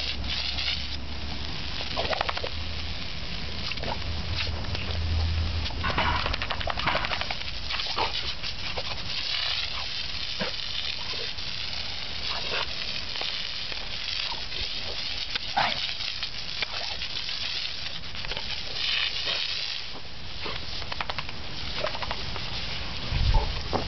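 Garden hose spraying a steady hiss of water at a pit bull as it bites at the stream, with short throaty noises and splashing from the dog's mouth every few seconds.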